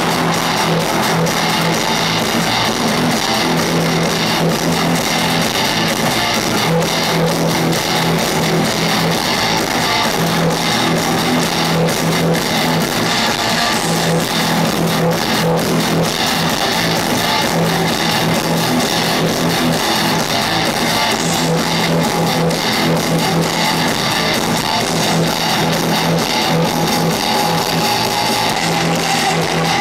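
Industrial metal band playing live at full volume: a repeating distorted electric guitar riff with bass and drums.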